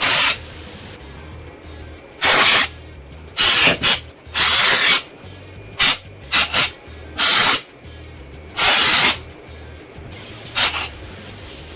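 Canned air duster spraying in about ten short hissing blasts, blowing dust off PC case parts.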